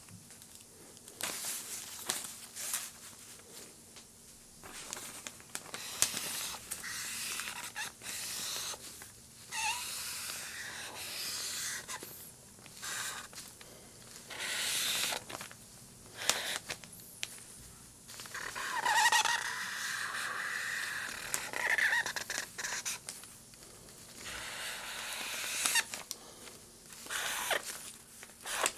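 Abstract sound-design noise: irregular bursts of hiss and crackle, broken by sharp clicks and a few short squeaky tones.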